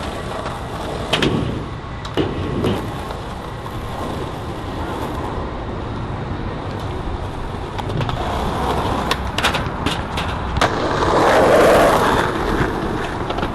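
Skateboard wheels rolling, with a few sharp clacks of the board, and a louder stretch of rolling near the end.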